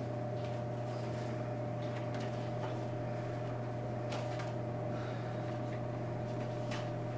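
A steady room hum, a low drone with a higher tone above it, like ventilation or electrical hum. A few faint rustles and ticks of paper being handled come through it.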